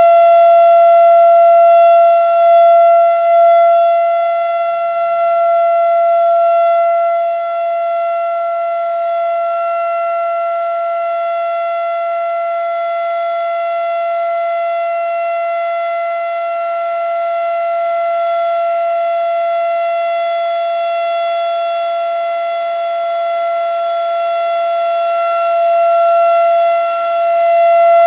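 Federal Signal RSH-10 Thunderbeam electronic warning siren sounding its steady Full Alert tone, one unwavering pitch with no rise or fall. The tone is loudest at the start and again near the end, quieter in between as the rotating speaker head turns away.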